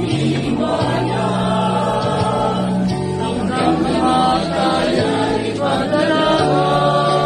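A choir singing a Tagalog hymn, several voices holding long notes over a steady low line.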